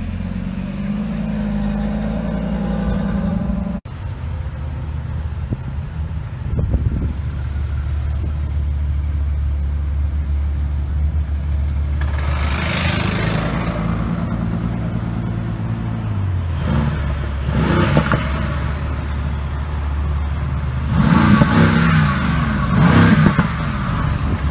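Sports car engines running low and steady, then revved loudly three times in the second half as cars pull away one after another.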